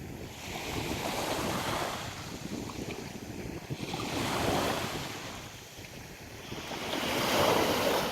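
Sea waves washing onto the shore, three surges about three seconds apart, with wind buffeting the microphone.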